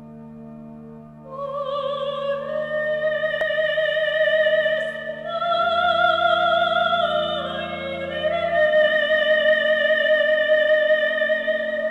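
Female soprano singing a slow, solemn melody in long held notes with a wide vibrato, over a sustained low drone. The drone sounds alone at first and the voice enters a little over a second in.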